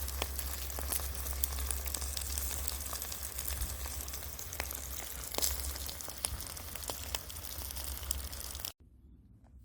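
Whole chicken roasting over a wood fire, sizzling steadily with frequent sharp crackles. The sound cuts off suddenly near the end.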